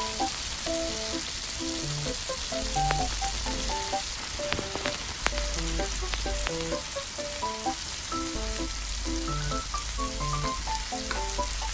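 Food sizzling in a tiny steel wok over a small wood fire, stirred with a small spoon that taps the pan a few times. A background tune of short notes with a low bass line plays along.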